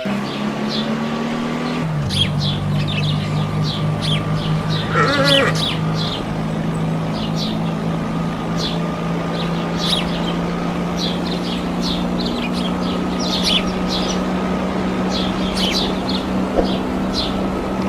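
Small birds chirping repeatedly over a steady low hum. The hum steps up slightly in pitch about two seconds in.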